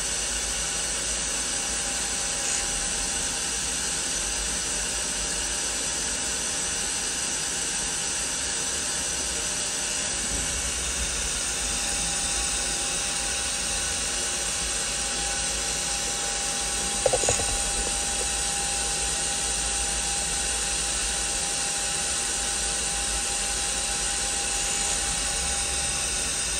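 CNC mill spindle running a half-inch end mill in reverse while the machine measures the cutter's diameter on a tool setter: a steady machine hum with a thin whine. A single brief click about two-thirds of the way through.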